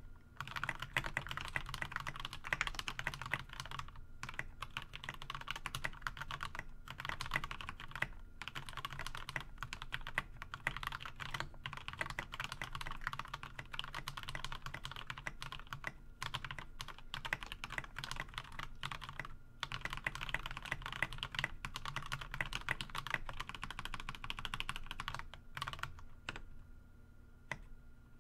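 Continuous typing on a GK61 60% mechanical keyboard with lubed Gateron Milky Yellow linear switches and lubed, clipped, holee-modded stabilizers: a deep, even run of rapid keystrokes with brief pauses, thinning to a few single keystrokes near the end.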